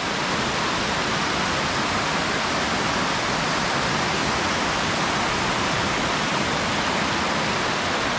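Fast, swollen river in flood rushing past in a steady, unbroken wash of water noise.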